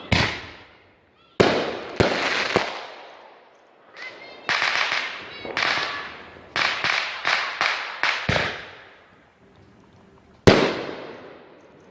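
Fireworks going off: a string of sharp bangs, each trailing off in an echo, with several in quick succession through the middle.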